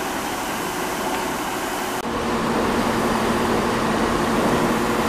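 Class 153 diesel railcar's underfloor diesel engine idling at the platform, a steady hum. About two seconds in it grows a little louder, with a stronger low drone.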